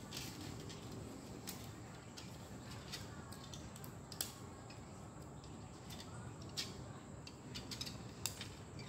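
Faint, scattered small clicks and ticks from hands handling a plastic 16 mm film reel and tucking the film end into its hub, over a low steady hiss. The sharpest clicks come about four seconds in and near the end.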